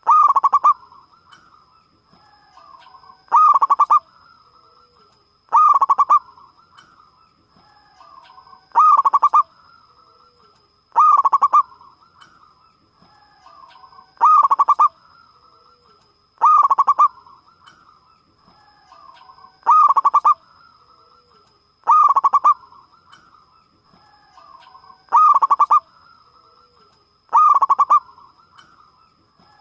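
Zebra dove (perkutut) cooing: a loud, rich call repeated about every two to three seconds, eleven times, with softer cooing notes between the calls.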